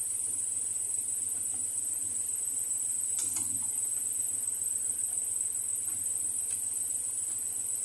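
Hot oil sizzling steadily as a bhatura deep-fries in a kadhai, with a light knock from the metal slotted spoon about three seconds in.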